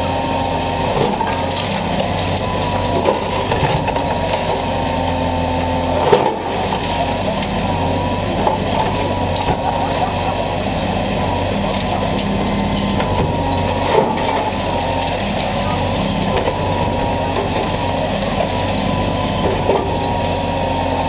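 Diesel engine of a high-reach demolition excavator running steadily with a thin hydraulic whine, while its jaws crunch through brick and concrete and debris knocks down, sharpest about 6 and 14 seconds in.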